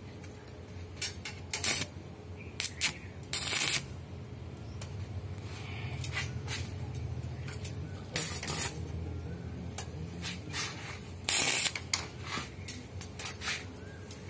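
TIG welding arc tack-welding a stainless steel handrail to its post: short hissing bursts of the arc, a few seconds apart and the longest about half a second, over a steady low hum from the welding machine.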